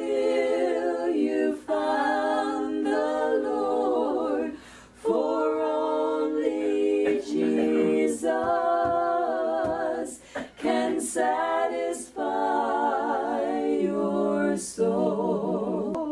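A small group of women's voices singing a gospel song a cappella in harmony, with no instrument. They sing in phrases of held notes with vibrato, taking short breaths between lines.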